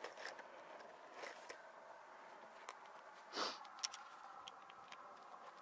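Faint handling noise: small clicks and rustles as gloved hands work a cordless drill and a metal trim strip, with one brief louder rushing sound about three and a half seconds in.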